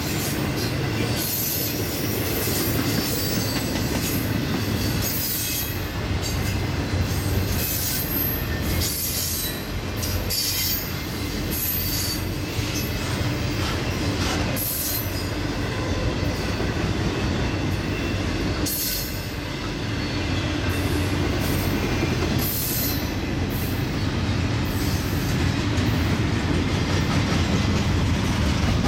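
Norfolk Southern intermodal (piggyback) freight train rolling past, a steady rumble of the cars with repeated high-pitched wheel squeals on the rails.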